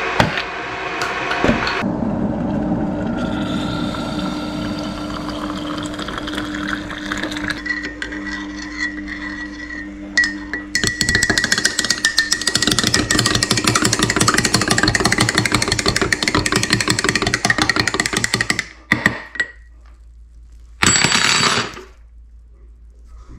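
Coffee being made in a ceramic mug: liquid poured in for several seconds, then a teaspoon stirring and clinking rapidly against the mug for about seven seconds, with a short clatter near the end.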